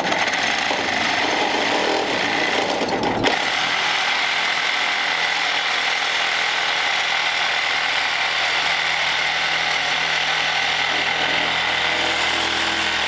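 Sawzall reciprocating saw cutting metal beside the clutch pedal to make clearance. It runs without a break, and its sound changes about three seconds in.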